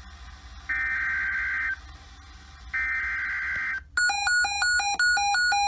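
Emergency Alert System SAME header: two buzzy digital data bursts about a second long, a second apart, which encode the alert. They are followed, about four seconds in, by rapid electronic alert beeping, about four beeps a second.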